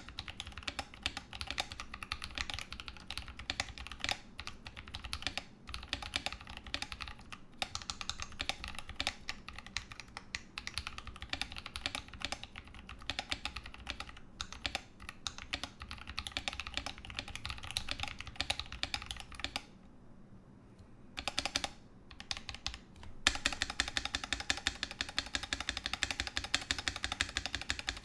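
Continuous fast typing on a Ramaworks M60-A 60% mechanical keyboard with original Holy Panda tactile switches and GMK Pristine keycaps, its case damped with an internal weight and Sorbothane. The keystrokes stop briefly about two-thirds through, then pick up again louder and denser near the end.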